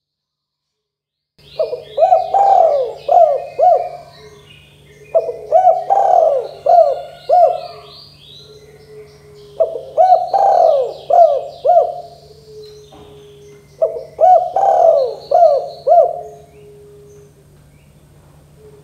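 Spotted dove cooing in four phrases, each a run of several quick coos, coming every four seconds or so and starting about a second and a half in. Small birds chirp faintly and higher-pitched in the background.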